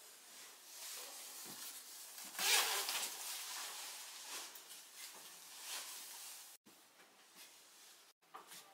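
Clothing rustling as a nylon puffer jacket is taken off and a top is pulled into place. The loudest swish comes about two and a half seconds in, and two brief cut-outs in the sound come near the end.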